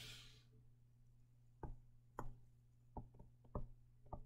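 Stylus tapping and clicking on a tablet screen during handwriting: a series of faint, sharp, irregular ticks in the second half, over a steady low electrical hum. A short breathy hiss comes at the very start.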